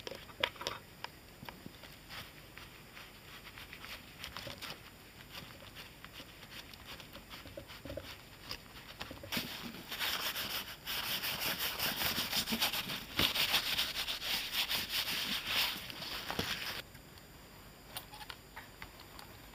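Leather being handled and rubbed close to the microphone: scattered small taps and rustles, then a loud stretch of dense rubbing and scuffing from about nine to seventeen seconds in.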